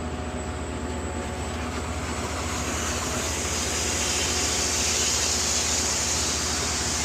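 Concrete mixer truck's diesel engine running steadily with a regular low throb, joined about halfway through by a growing hiss.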